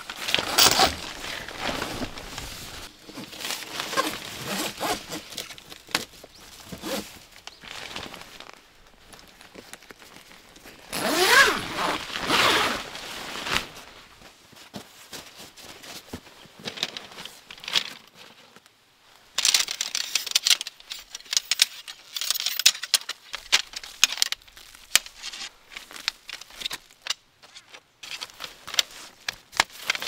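Nylon tent fabric rustling and crinkling as it is handled and spread out, with scattered sharp clicks and knocks. About eleven seconds in comes a louder dragging, scraping rush lasting a couple of seconds.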